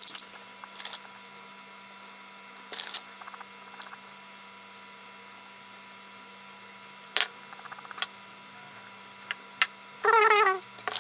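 Scissors cutting into a soft, translucent amber casting mould around a worm gear, heard as a few sparse snips and clicks over a faint steady hum. A short, wavering pitched sound comes near the end.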